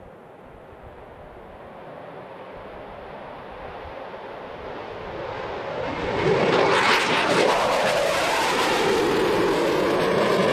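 US Navy F/A-18 fighter jet engine noise, growing steadily louder over about six seconds and then staying loud.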